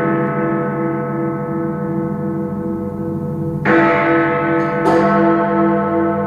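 Big Ben's clock bells ringing: a long, slowly pulsing ring left by a strike, then two new strikes a little past halfway, about a second apart, each ringing on.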